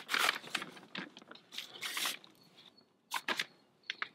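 Hands brushing and patting loose potting compost level in a wooden crate: an irregular rustling and crunching for about two seconds, then a few short, sharp scrapes about three seconds in and again near the end.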